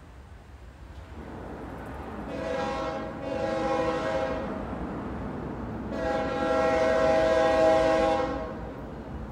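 Approaching freight locomotive sounding its multi-note air horn: two blasts close together, then a longer one about six seconds in, over the rising rumble of the train.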